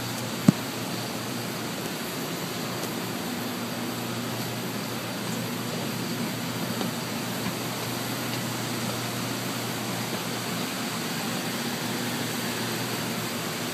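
Steady rushing mechanical drone with a low hum underneath, the background noise of a factory hall, with one sharp click about half a second in.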